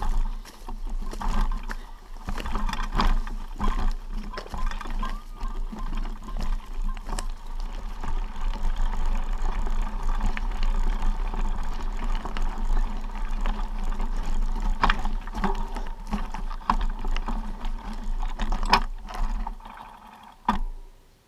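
Footsteps on a loose, stony trail, a dense run of irregular crunches and knocks, over a steady low rumble on the microphone. The steps fade out near the end after one last short burst.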